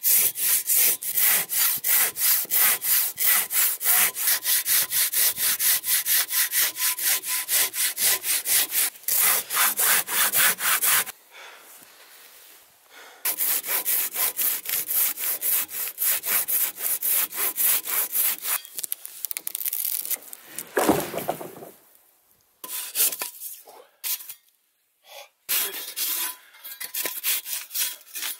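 Silky Katanaboy, a large folding pull saw, cutting through a dead tree trunk in fast, even strokes of about three to four a second, with a short pause partway through. About three-quarters of the way through comes a single heavy thud, then shorter, broken runs of sawing as the wood is cut into rounds.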